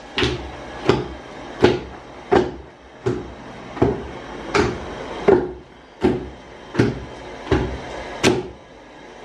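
Long wooden pestle pounding a soft paste in a wooden mortar: a steady run of about a dozen thuds, one every 0.7 seconds or so.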